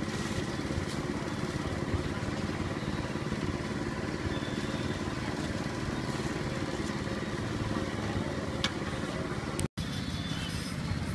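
Street ambience: a steady hum of motorbike traffic with voices talking in the background. It drops out for an instant near the end.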